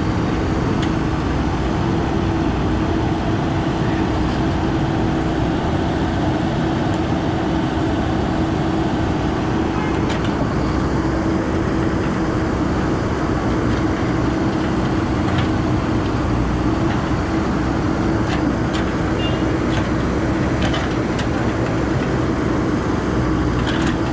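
A motor vehicle travelling at a steady speed: constant engine and road noise with a steady hum.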